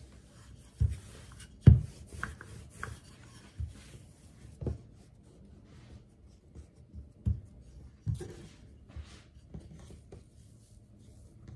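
Wooden rolling pin rolling out shortcrust dough on a wooden worktop: soft rubbing broken by irregular knocks and thumps of the pin on the board, the loudest about two seconds in.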